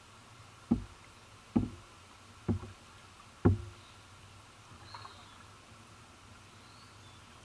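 Kayak paddle strokes on a Jackson Journey 14 kayak, picked up through the hull by the camera mounted on it: four dull thumps about a second apart, then quieter gliding with one faint knock.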